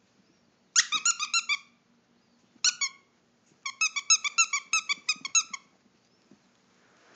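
A squeaky dog toy squeaking in three quick runs of high-pitched squeaks, several a second, as it is chewed.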